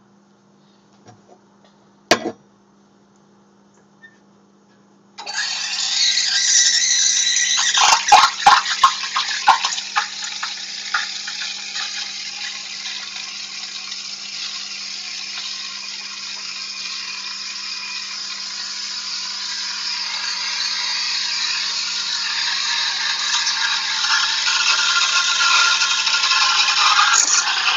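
Rancilio Silvia espresso machine's steam wand, with the knob opened all the way and the tip just below the surface of the milk. It starts suddenly about five seconds in with a loud hiss and a few seconds of sputtering crackles, then settles into a steady, very loud steaming hiss that grows louder toward the end. Before it opens there is only a faint low hum and a single click.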